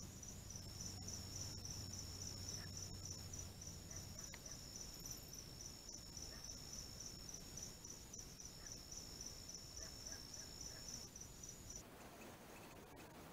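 An insect chirping steadily at night: a high-pitched call repeated in rapid, even pulses, which stops near the end.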